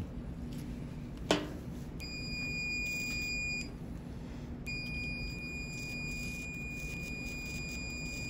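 Hyfrecator electrocautery unit sounding its steady high activation tone twice, first for about a second and a half, then for about four and a half seconds. The tone means the handpiece is live and cauterizing bleeding in the wound. A single sharp click comes about a second in.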